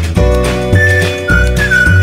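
Upbeat background music with a steady beat and a whistled melody of held notes stepping down in pitch.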